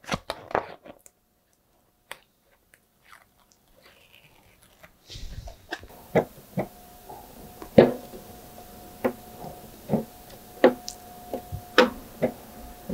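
A clear Lexan RC car body being handled while a wet-applied vinyl decal is pressed onto it: irregular sharp clicks, taps and crinkles of the thin plastic shell flexing under the fingers. A faint steady hum comes in about halfway through.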